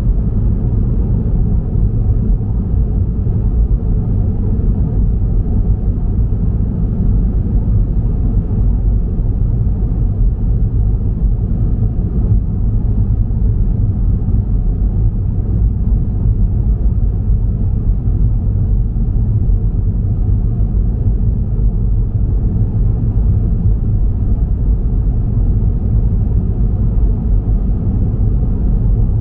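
Road noise of a moving car: a steady low rumble that does not change.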